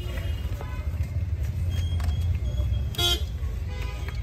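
Steady low traffic rumble, with one short car horn toot about three seconds in.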